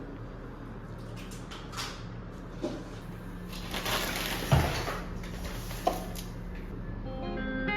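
A few scattered knocks and rustles from handling things, over a steady low electrical hum. A guitar music track begins at the very end.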